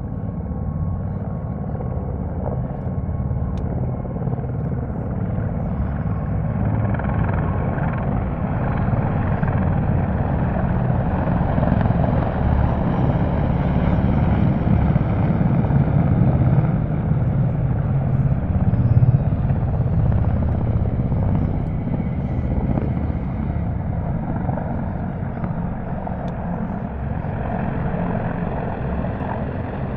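Military helicopters flying past overhead, a steady low rotor beat with turbine noise that swells as they approach, is loudest a little after the middle, then slowly fades.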